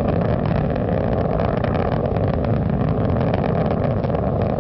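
Space Shuttle Atlantis's engines burning in powered ascent, with the main engines throttled back to 72%: a loud, steady, dense low rumble with no let-up.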